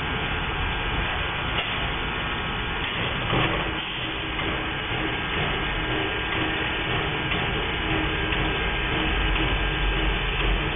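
Railroad turntable rotating a steam locomotive: a steady mechanical running noise with a faint steady hum, and a brief clatter about three and a half seconds in. A low rumble grows louder near the end.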